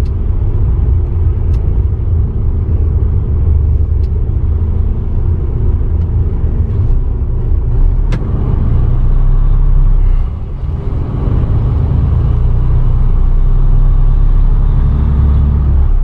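Diesel engine of a semi-truck running with a steady low rumble, heard from inside the cab as the truck creeps forward in the border queue. The sound drops briefly about ten seconds in, then comes back just as strong.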